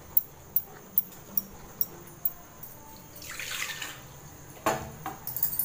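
A spatula stirring thick masala gravy in a nonstick kadai, tapping and scraping the pan about two and a half times a second. A little after three seconds comes a short splash as water is poured in to thin the gravy, and near the end there is a loud knock of the spatula against the pan.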